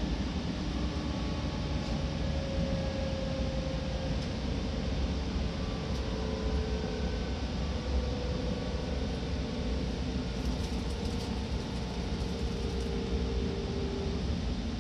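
Seibu Ikebukuro Line Red Arrow limited express train running, heard from inside the passenger car: a steady low rumble with faint tones that drift slowly up and down in pitch.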